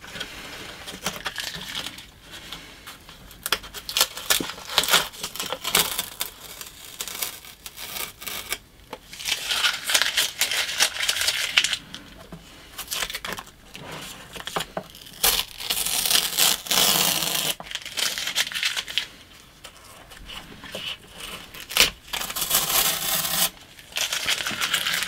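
Blue painter's tape being peeled off a foam wing in several long rips, each lasting a second or two, with crinkling of the used tape and small handling clicks in between.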